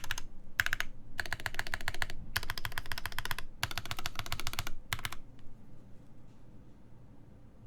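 Fast typing on a SINGAKBD Jaguar v2 mechanical keyboard, top-mount with an aluminum plate, lubed JWK/Moyu Poseidon switches and DCS keycaps. The keystrokes come in quick runs broken by short pauses and stop about five seconds in.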